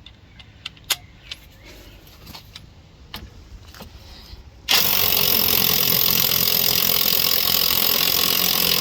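Handling clicks and taps, then about five seconds in a cordless impact driver starts hammering steadily on the shock absorber's nut. It runs on without freeing the nut, because the shock's centre rod keeps spinning with it.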